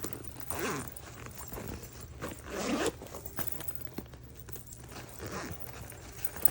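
Backpack zipper being pulled open and closed in a few separate rasping strokes, the longest and loudest about two and a half seconds in, with a steady low hum underneath.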